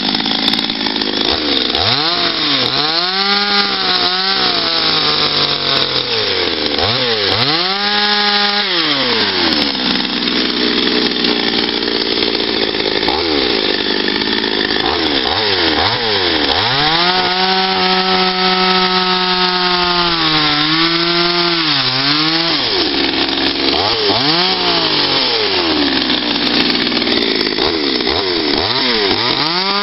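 Small two-stroke petrol chainsaw carving into a wooden log. It revs up and falls back toward idle again and again, with a longer stretch held at high revs in the middle.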